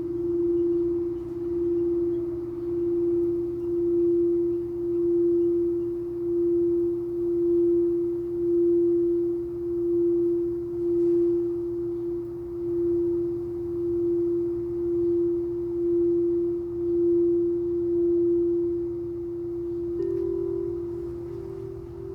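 Singing bowl sounding one long, steady tone that swells and fades about once a second as it is played. About twenty seconds in, a second, slightly higher bowl tone comes in.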